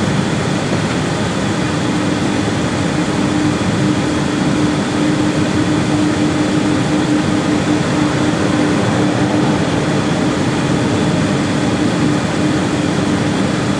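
Steady cockpit noise of an Airbus A318 taxiing at engine idle: an even rush of air-conditioning and engine noise, joined about two seconds in by a steady low hum.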